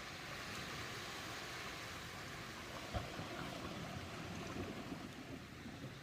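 Ocean surf: a steady rush of breaking and washing waves, swelling through the middle, with one short low thump about three seconds in.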